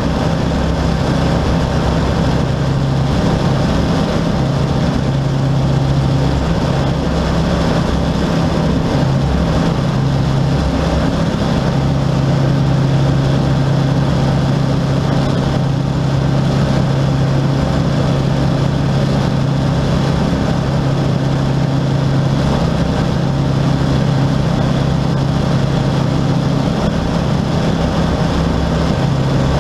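Rans S-6S Coyote II light aircraft's engine and propeller droning steadily in cruise, heard from inside the cockpit as a low, even engine hum under rushing air.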